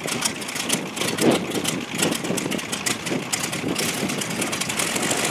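P-51 Mustang's Packard Merlin V-12 engine running at idle with a crackling exhaust, rough and uneven at first and settling steadier after about four seconds.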